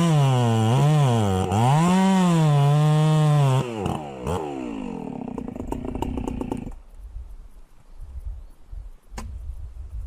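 Chainsaw engine revving up and down in quick swells, then dropping off as the throttle is let go and winding down to nothing about two-thirds of the way through. A low rumble follows, with one sharp click near the end.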